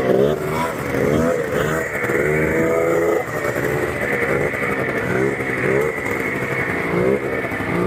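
A 30-year-old two-stroke snowmobile engine revving up and down as the throttle is worked, its pitch rising and falling several times.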